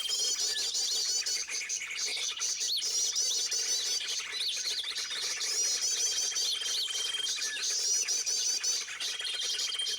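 Birds chirping busily, with quick strings of high chirps repeating again and again. A thin, held whistle-like note sounds at the start, again about six seconds in, and near the end.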